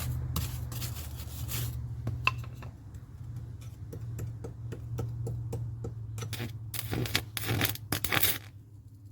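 Metal tools clinking and scraping on metal: a string of irregular sharp clicks, with a few longer scrapes about seven to eight seconds in, over a steady low hum.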